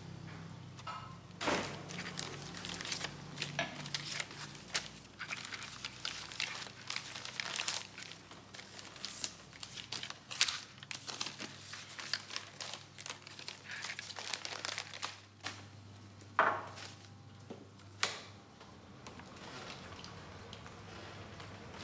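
Irregular crinkling and crackling, dense for most of the stretch, with two louder crackles near the end.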